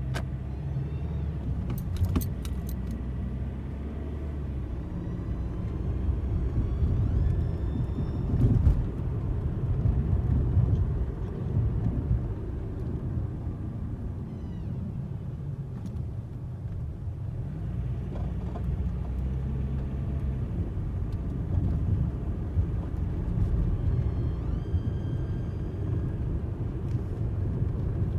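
2012 Hyundai Elantra being driven at low speed: steady engine and road rumble with a high-pitched whine that rises in pitch as the car picks up speed, heard several times. It is the whine that the owner first suspected was a transmission problem, though the car shifts fine. A few clicks near the start.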